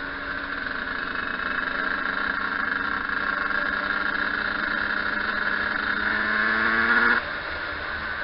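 Yamaha YZ125 single-cylinder two-stroke engine under load, its pitch climbing slowly and getting louder for about seven seconds, then dropping abruptly as the throttle is shut near the end.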